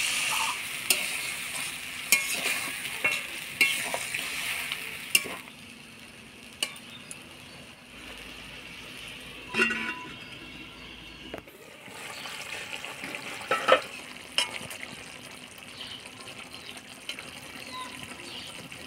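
Okra in a spiced yogurt gravy sizzling in a pan, with sharp clicks of a spatula knocking against the pan. The sizzle is loudest for the first five seconds, then drops to a quieter hiss broken by a few more knocks.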